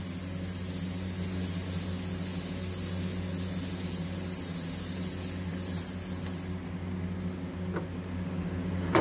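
Gravity-feed airbrush hissing as it sprays paint along the edge of a hand-held stencil, over a steady low motor hum; the hiss changes about two-thirds of the way through.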